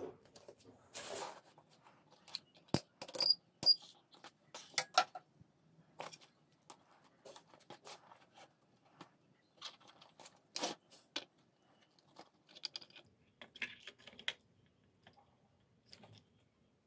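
Irregular clicks, taps and brief rustles of hands handling a disassembled disposable vape's small battery and multimeter test leads on a workbench. The sharpest clicks come in a cluster a few seconds in.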